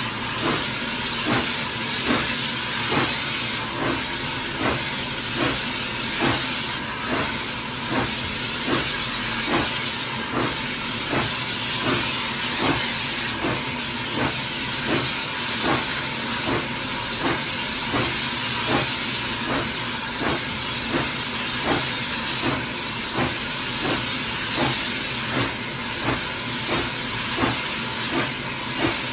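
Hunslet Austerity 0-6-0 saddle tank steam locomotive working along, heard close from the footplate: a steady rhythm of exhaust beats over a continuous hiss of steam.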